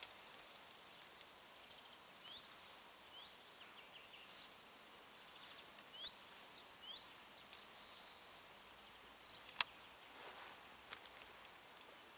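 Faint small birds chirping: a run of short, quick rising notes over a soft hiss, with one sharp click about ten seconds in.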